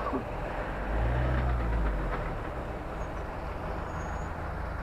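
Fire engine's engine running with a steady rumble, swelling louder and deeper for about a second shortly after the start.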